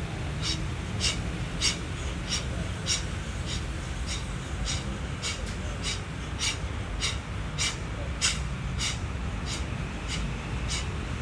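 A boxer shadowboxing, blowing out a short, sharp breath with each punch in a steady rhythm of nearly two a second, over a low steady rumble.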